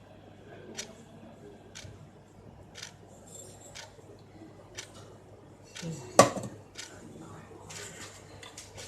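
Light clicks and taps of small kitchen containers being handled, coming about once a second, with one louder knock about six seconds in.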